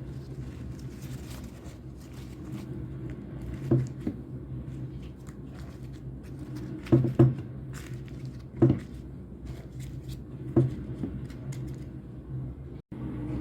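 A few short knocks and clicks of kitchen handling, loudest a double knock about seven seconds in, over a steady low hum.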